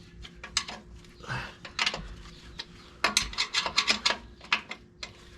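A wrench clicking and clinking against metal bolts in irregular bursts as the bolts are loosened, busier in the second half.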